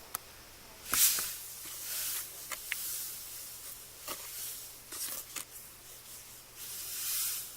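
A wooden paint stir stick stirring a wet, gritty mix of sand, glue and glitter in a container: irregular squishy scraping strokes, loudest about a second in and again near the end, with a few light clicks of the stick against the container.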